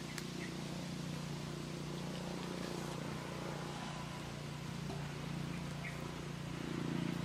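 A motor running steadily in the background, a low even hum that grows a little louder near the end.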